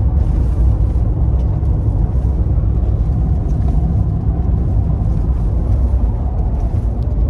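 Ford Raptor pickup driving on a dirt road, heard from inside the cab: a loud, steady low rumble of road and engine noise.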